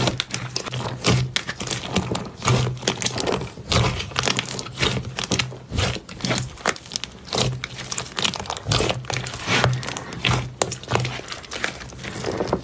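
Slime being squeezed and worked by hand, giving a dense, fast run of small crackling and popping clicks.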